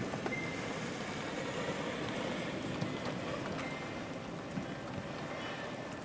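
Steady rain falling, an even hiss and patter with no thunder. A couple of brief, faint high ringing notes sound over it, one near the start and one a little past halfway.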